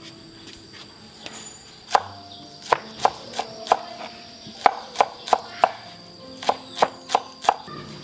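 A run of about fifteen sharp knocks, each with a brief ringing tone, starting about two seconds in and ending shortly before the end, with a faint steady high tone behind.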